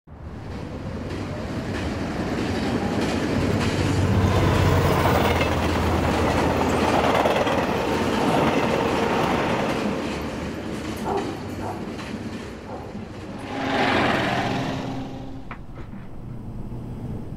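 Elevated train passing on its tracks, a dense rattling rumble that builds up over the first few seconds, holds, then eases away, with a second short swell of noise about fourteen seconds in.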